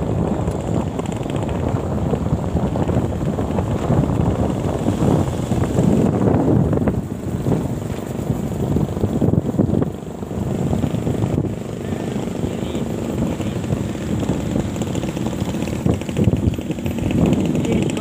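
Motorcycle engine running at road speed, mixed with wind rushing over the microphone of the moving bike.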